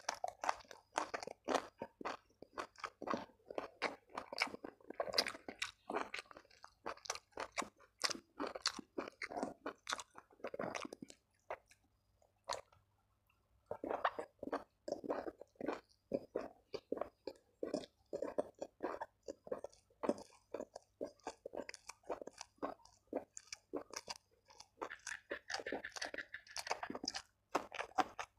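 Close-up chewing and crunching of food: rapid, irregular crunches and wet chewing as raw vegetables such as long beans and green chilies are bitten and eaten with rice. The chewing stops for about two seconds near the middle, then resumes.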